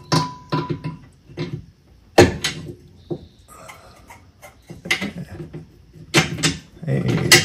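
Sharp metal knocks and clunks, several in quick groups, as a bolt is forced through the rear control arm mount, with short strained grunts in between.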